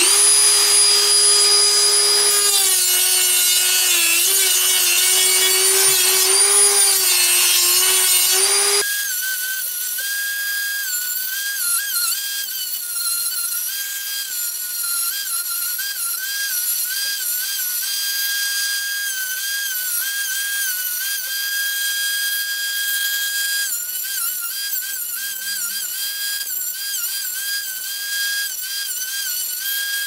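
Handheld rotary tool (Dremel-type) running at high speed, a steady whine that dips in pitch again and again as it sands and grinds away G10 glass-fibre and resin sheet. About nine seconds in it turns quieter and thinner, and the whine keeps dipping under load.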